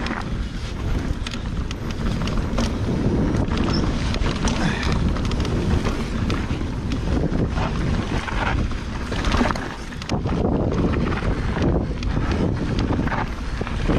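Santa Cruz Megatower enduro mountain bike descending a rough trail at speed: wind rushing over the microphone, with tyre noise and frequent rattles and knocks from the bike over roots and rocks.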